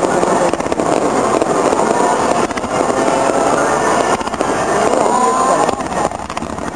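Rapid barrage of fireworks: a fan of comet shots fires in quick succession, giving a dense, continuous run of pops and crackles. The level eases briefly about six seconds in.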